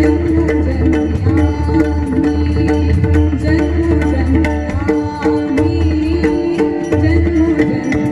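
Pakhawaj and tabla playing a fast, dense rhythm over sustained melodic accompaniment, the instrumental backing of a Marathi abhang.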